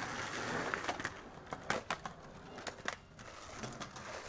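A few scattered sharp clicks and light knocks, irregularly spaced, over faint background hiss.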